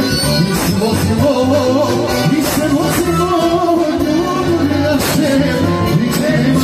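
Live band music through a PA: a man singing into a microphone over an electronic keyboard and a drum kit keeping a steady beat.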